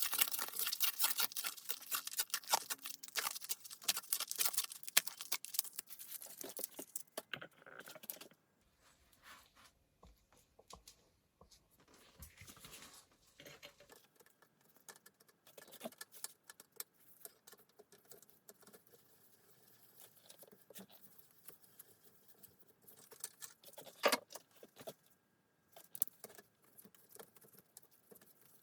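Small metal bicycle parts clinking and scraping as they are handled and worked on. The first several seconds are a dense, rapid run of scraping and clicking, followed by scattered quieter clicks and one sharper click near the end.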